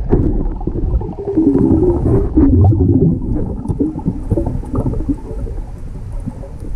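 Muffled underwater noise picked up by a camera in a waterproof housing: a loud, low rumbling wash of water movement with a few faint clicks.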